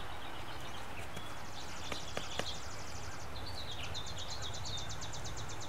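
A small bird's rapid, high, dry trill, given twice, each lasting a couple of seconds, over a steady low outdoor background. A couple of soft clicks come near the middle.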